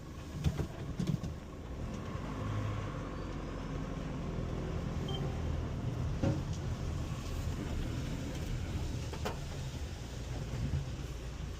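Vehicle driving over muddy ground, heard from inside the cab: a steady low engine and road rumble with a few sharp knocks and rattles.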